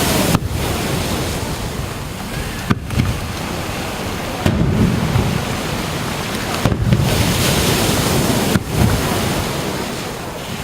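Steady rushing of sea surf with wind on the microphone, broken by about five short dropouts.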